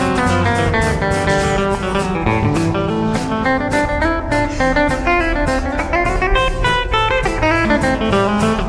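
Live band playing a song: electric and acoustic guitars, electric bass guitar and a drum kit, with a steady beat.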